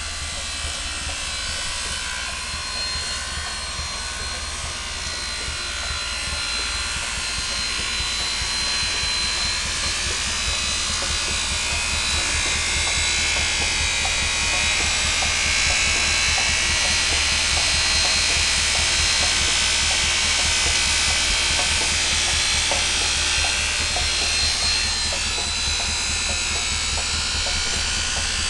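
Angle grinder running against a slowly rotating steel drill-press column, polishing it: a steady high motor whine over a grinding hiss that grows louder towards the middle. A low steady rumble runs underneath from the forklift whose drive wheel turns the column.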